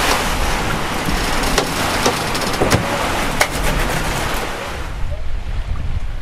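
Strong wind and sea rushing over a sailing catamaran's cockpit, with a handful of sharp clicks from the winch as the crew reefs the sail. The hiss eases about five seconds in.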